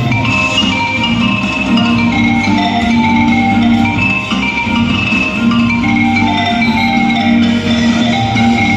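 Music led by mallet percussion, playing a melody of short ringing notes over a steadily repeating low line.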